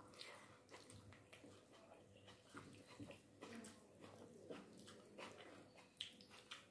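Very faint, scattered soft clicks and squelches of fingers mixing rice and curry on a plate, over a faint steady hum.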